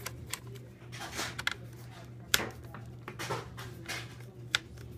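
Small screwdriver turning the tight screws of a laptop's plastic bottom plate: scattered sharp clicks and short scrapes of the bit in the screw heads, the loudest click a little over two seconds in, over a low steady hum.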